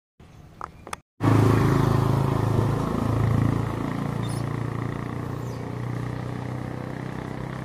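An engine running steadily with a low drone. It cuts in suddenly about a second in and slowly gets quieter.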